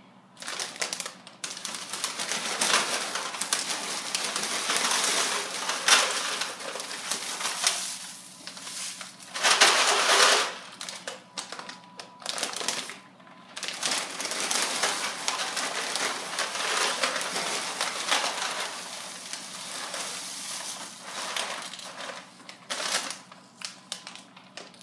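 Small hard twist pretzels poured from plastic bags into an aluminium foil pan: a dry, clicking rattle with the bags crinkling. It comes in several pours with short pauses between them and is loudest about ten seconds in.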